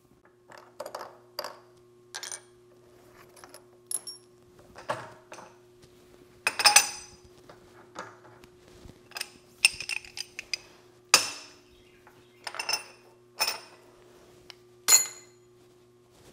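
Steel drill bits and hand tools clinking and clattering, with a brief metallic ring after each strike, as bits are picked up, set down and changed in a milling machine's drill chuck. A steady low hum runs underneath.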